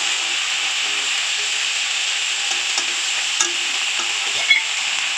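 Chopped onions and capsicum with ginger paste and chilli powder sizzling steadily in hot mustard oil in a metal kadai, being fried down while a metal spatula stirs them. A few short scrapes and clicks of the spatula on the pan, the sharpest about four and a half seconds in.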